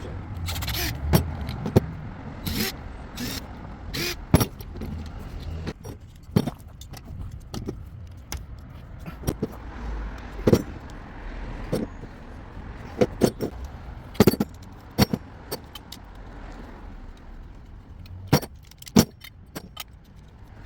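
Irregular sharp metallic clinks and knocks, as of copper pipe, fittings and tools being handled and set down, over a low uneven rumble.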